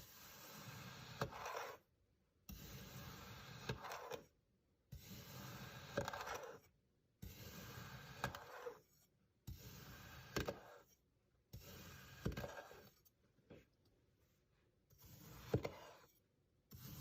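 Knife slicing through kinetic sand: a soft, crumbly scraping with small clicks. It comes as a series of separate cuts, each a second or two long, with brief silences between them.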